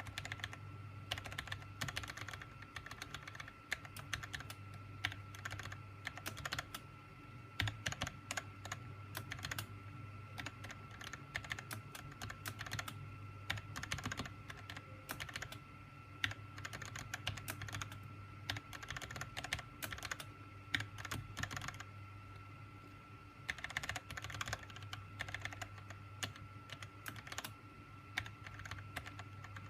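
SteelSeries Apex M800 mechanical keyboard being typed on: a fast, irregular run of key clicks and clacks with short lulls, over a faint steady hum.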